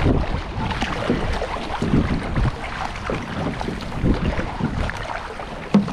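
Whitewater canoe-kayak run: rushing river water with repeated paddle-stroke splashes every second or so, and wind on the microphone.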